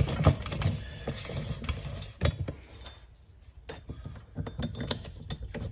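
Irregular metal clicks and clinks of transmission parts being handled and fitted together.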